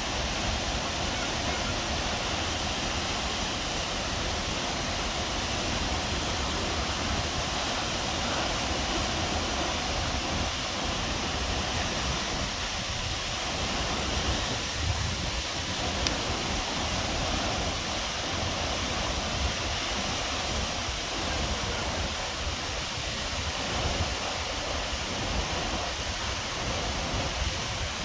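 Waterfall rushing steadily: a constant, even noise of falling water.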